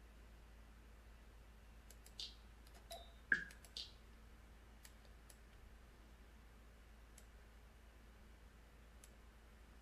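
Computer mouse clicking over quiet room tone: scattered faint single clicks, with a short run of four louder clicks about two to four seconds in.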